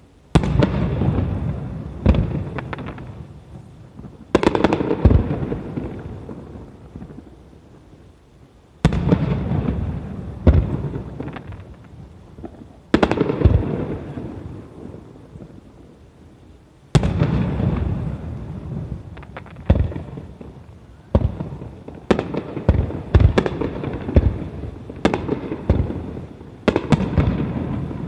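Fireworks shells bursting overhead. Each loud boom is followed by a long rolling echo. The booms come a few seconds apart at first, then in quick volleys of many bursts during the last third.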